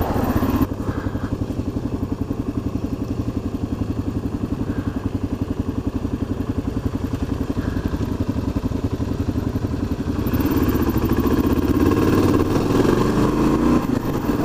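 A single-cylinder dual-sport motorcycle engine running steadily while riding. It gets louder about ten seconds in.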